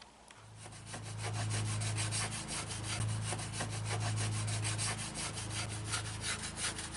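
Rapid, rhythmic hand scraping or rubbing strokes on a hard surface, about six a second, over a steady low hum.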